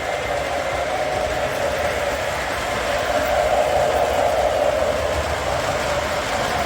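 O gauge model train running on the track: a steady electric motor hum that drifts slightly up and down in pitch as it goes, over the rumble of wheels on rail.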